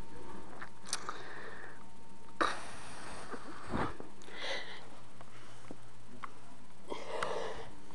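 Soft sniffing and breathing noises close to the microphone, with a few faint clicks and a sharper click about two and a half seconds in.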